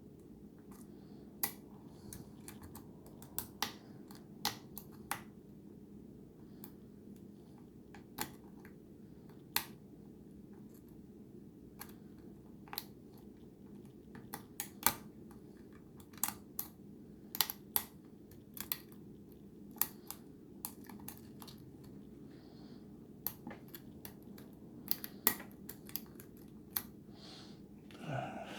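Lock pick and tension wrench working the security pins of a Schlage pin-tumbler lock: irregular, sharp metallic clicks of pins being lifted and set, spaced from a fraction of a second to a few seconds apart.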